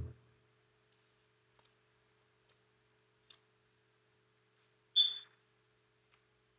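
A soft thump at the start, a few faint ticks, and one sharp click with a brief high ring about five seconds in, from hair-styling tools being handled while a section of hair is combed out.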